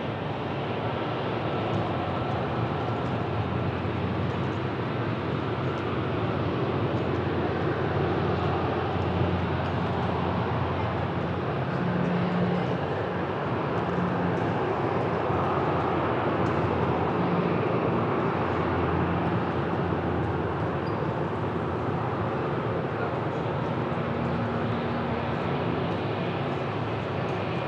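Jet airliner engines running: a steady, even noise with faint held humming tones, swelling slightly and easing again without any sharp change.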